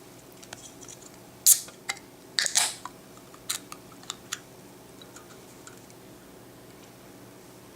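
A string of short sharp clicks and brief rustling scrapes, the loudest about a second and a half in and again around two and a half seconds in, dying away after about four seconds into a faint steady hum.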